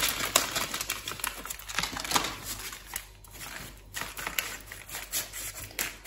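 Uncooked rice poured from a packet into a greaseproof-paper-lined pastry case and spread by hand as baking weights for blind baking: a quick, irregular patter of grains with crinkling of the paper.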